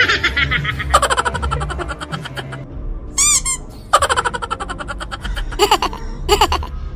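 Bursts of quick, giggling laughter, with a short high-pitched squeal a little past the middle.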